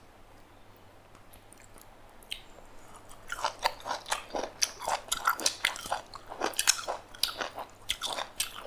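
Close-up eating sounds: crisp food being bitten and crunched, with chewing. It starts about three seconds in and carries on as a dense run of crackles.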